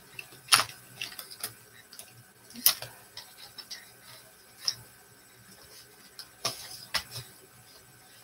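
Light, irregular clicks and taps of a paintbrush working on a paint palette, spaced unevenly about a second or two apart.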